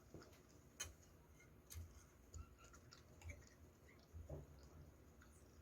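Faint chewing close to the microphone, with soft mouth clicks about once a second.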